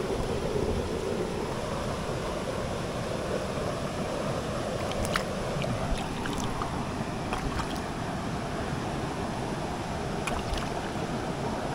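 Steady rush of a headwater mountain stream, with a few short sharp clicks around the middle and near the end.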